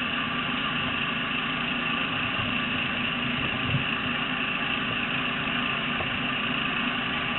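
A steady engine idling, an even hum with no change in pitch.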